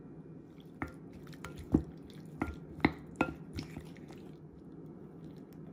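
Wooden spoon stirring raw shrimp in egg white in a glass mixing bowl: about eight irregular knocks of the spoon against the glass over three seconds, a few ringing briefly, with wet squishing of the shrimp.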